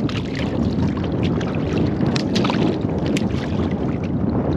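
Steady wind rumble on the microphone and water slapping the hull of a small boat, with a few sharp knocks about two to three seconds in as a hooked conger eel thrashes at the gunwale.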